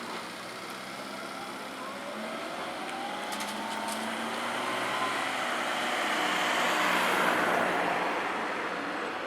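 A vehicle passing the level crossing: its running noise swells to a peak about seven seconds in and then fades. A whine rises in pitch over the first few seconds, with a few sharp clicks at about three and a half seconds.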